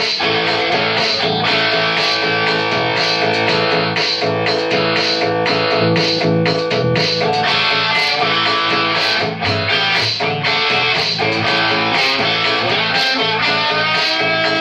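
Electric guitar played through a c1977 Marshall 2203 100-watt all-valve head with EL34 valves, no effects: picked notes and chords with long sustained notes and a string bend near the end.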